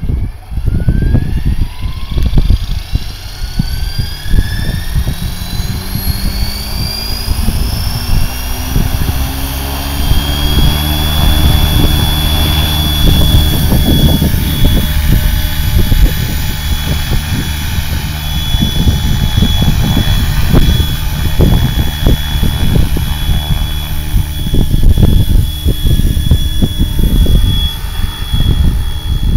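Electric RC helicopter (S four Concept, Scorpion 4025-890 brushless motor on a 6S battery) spooling up, its motor and rotor whine rising in pitch over the first few seconds, then holding a steady high whine with a low rotor hum as it lifts off and flies. Wind rumbles on the microphone throughout.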